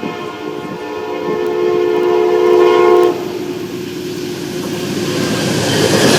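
Nathan K5LA five-chime air horn on an Amtrak GE P42 diesel locomotive sounding a steady chord that cuts off suddenly about three seconds in. The noise of the passenger train on the rails then grows louder as it comes by.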